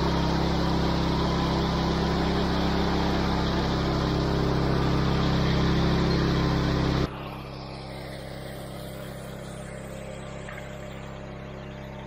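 A steady engine running close by. About seven seconds in, it drops abruptly to a quieter, steady engine hum.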